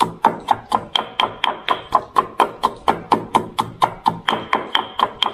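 Pestle pounding soaked rice in a mortar: a steady run of quick strikes, about four a second, each with a short ringing tone.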